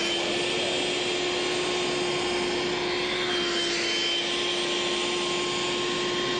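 Handheld vacuum cleaner, built with 3D-printed ABS prototype parts, running steadily at full power while vacuuming a rug: an even rush of air with a steady motor hum and a high whine.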